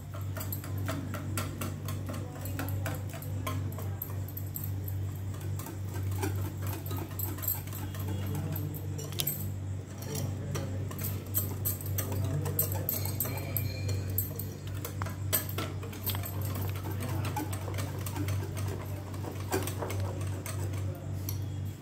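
A utensil beating a thick yogurt, nut-paste and spice marinade in a bowl: rapid, irregular clicking and scraping against the bowl, over a steady low hum.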